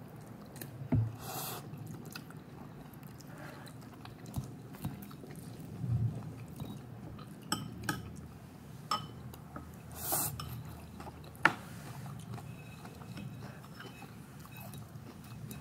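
Close-up chewing of a mouthful of salmon poke bowl, with scattered sharp clicks of a plastic fork against a ceramic bowl.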